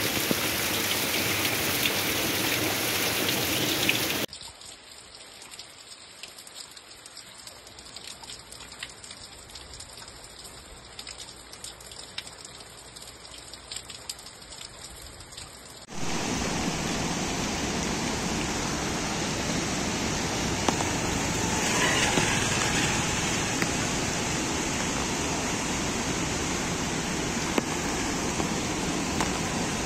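Heavy rain pouring down, which cuts off about four seconds in to quieter rain with scattered drips. About sixteen seconds in, a loud steady rush of water takes over: a swollen, muddy river in flood.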